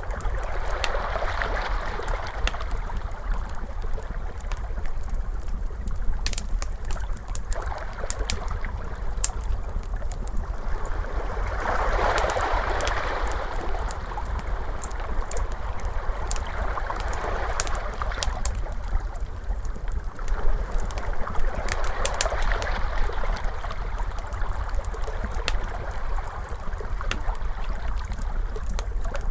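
A wood fire crackling with scattered sharp pops, over ocean waves that swell and wash in every few seconds on a steady low rumble.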